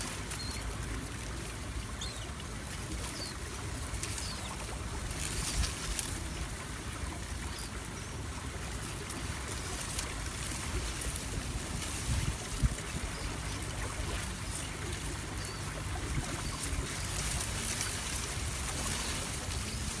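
Steady outdoor ambience of wind rumbling on the microphone over gently flowing river water.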